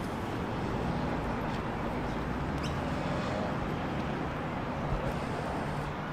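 Outdoor lakeside background noise: a steady low rumble with a few short high chirps from small birds, the clearest about two and a half seconds in.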